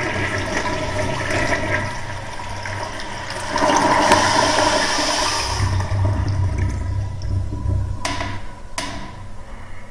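Vintage toilet flushing: water swirls and drains from the bowl, surging louder about three and a half seconds in before easing off. Two sharp clicks come about eight seconds in, less than a second apart.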